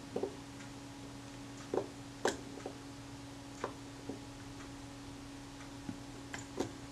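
Small screwdriver working tiny screws into a camera's metal side cover: a handful of light, irregular clicks and ticks over a faint steady hum.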